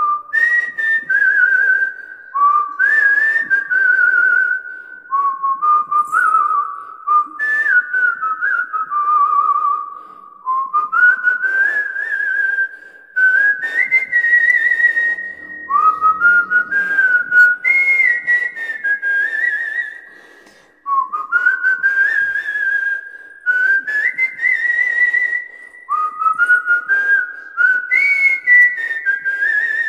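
A man whistling a Kannada song melody through pursed lips: a single clear high tone moving in melodic phrases, with warbling trills and sliding notes, broken by a few short gaps.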